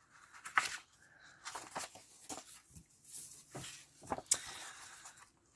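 Sheets of patterned scrapbook paper rustling and sliding as they are handled and flipped over by hand, with several short crackles and a longer swish between about three and five seconds in.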